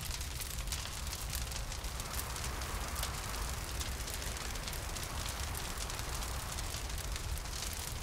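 Crackling fire sound effect: dense, rapid small crackles and pops over a low steady rumble, with a hollow wind blowing underneath.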